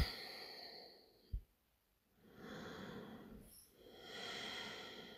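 Slow, audible breathing: a breath fading out at the start, then two unhurried breaths about two and a half and four seconds in. A brief low thump about a second and a half in.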